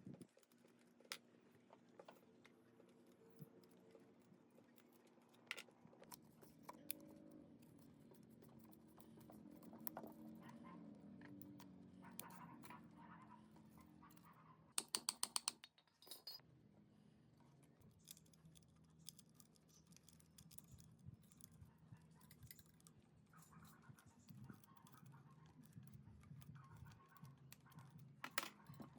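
Faint handling noises (light taps, scrapes and ticks) over a low steady hum, with a quick run of about eight sharp clicks around the middle.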